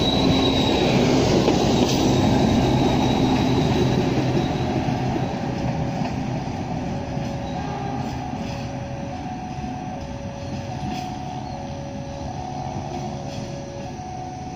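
Passenger train's coaches passing close by on the rails, with rumble and clatter and a high wheel squeal in the first second. The sound fades steadily as the tail of the train draws away. In the second half, faint short tones come and go.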